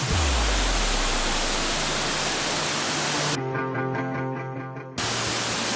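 Rushing water of a tall waterfall cascading over rock, with soft background music underneath. About three and a half seconds in, the water sound cuts out suddenly for about a second and a half, leaving only the music, then comes back.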